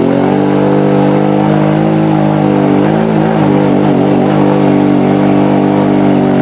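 Engine of a lifted, big-tyred mud ATV held at high revs as it churns through deep mud and water. The engine note stays high and steady, wavers briefly about halfway through, and falls off right at the end.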